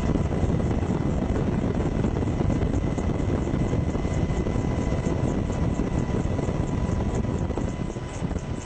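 AH-64 Apache helicopter's rotor and engines running steadily, a dense noise with a fast, even pulsing from the rotor, easing a little near the end.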